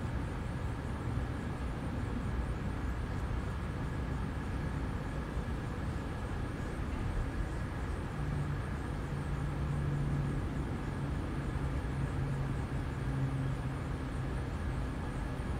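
Steady low background rumble with a faint high steady tone over it; a deeper hum joins about eight seconds in and fades near the end.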